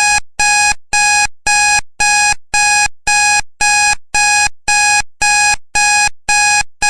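Electronic countdown-timer alarm beeping, signalling that the timer has run out: loud short beeps of one pitched tone, evenly spaced at about two a second.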